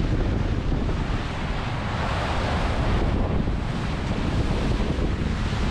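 Wind buffeting the microphone over the rush of water along the hull of a Mini 6.50 racing sailboat moving fast through the waves, with the water rushing louder for a moment about two seconds in.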